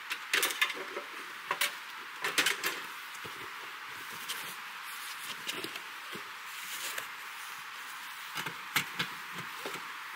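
A cardboard box being handled and its packaging searched as a boxed pipe oven is unpacked: scattered short rustles and knocks, in clusters, over a steady background hiss.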